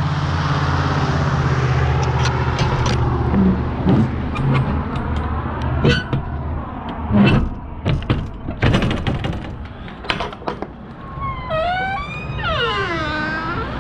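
Heavy truck engine idling steadily, with scattered clanks and knocks. Near the end comes a squeal that falls in pitch, first in short steps, then in one long downward glide.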